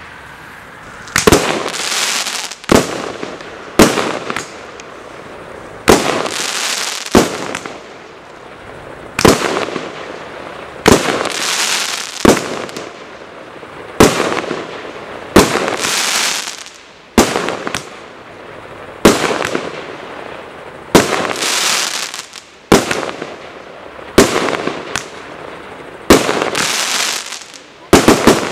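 A 1-inch 19-shot firework cake firing shot after shot, one sharp bang every one and a half to two seconds. Each bang trails into a crackling hiss that fades over a second or two.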